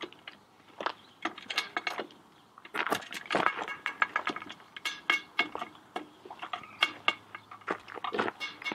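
Metal clinks and clicks as the wing-nut clamp bolts around an autoclave's lid are unscrewed and let drop, knocking against the pot's rim, at an irregular pace. They are busiest in the middle stretch.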